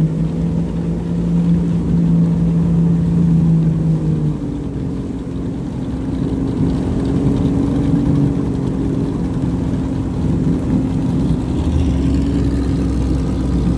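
Jet ski engine running steadily. About four seconds in its note and loudness drop as it eases off, then it settles on a new steady note, and a deeper low rumble comes in near the end.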